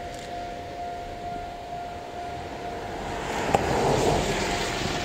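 KiHa 48 diesel railcars approaching, their running noise growing louder about three and a half seconds in, over a steady high hum heard throughout.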